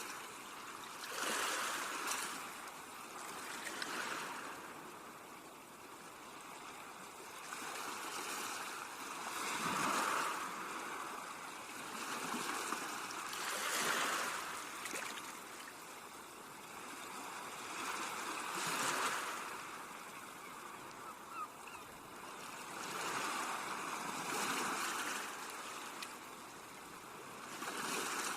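Sea waves breaking on a beach and washing back, the surf swelling and fading every four to five seconds.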